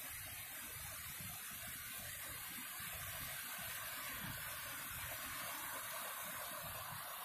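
Creek water rushing over rocks: a steady, even hiss with no let-up.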